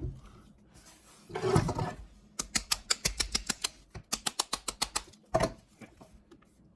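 Plastic bottom cap of a Philips Sonicare toothbrush handle being pushed and twisted back into place: a knock, then two quick runs of sharp clicks, about nine a second, and another knock near the end.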